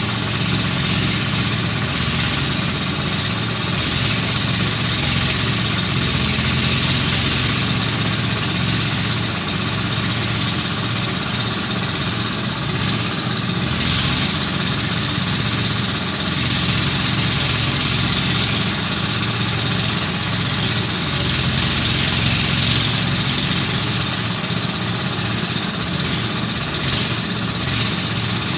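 Engine of rice-harvesting machinery running steadily at a constant speed, with an even mechanical hiss over the low engine hum.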